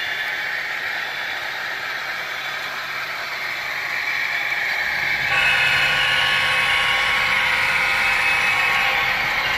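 HO scale model coal train rolling along the track, with a steady rush of wheel and running noise. About five seconds in, the BNSF GEVO diesel locomotive models come past and the sound gets louder, with a steady hum and a few held tones added.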